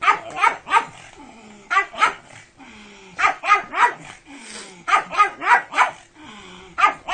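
A pug barking in short bursts of two to four quick barks, repeated about every second and a half.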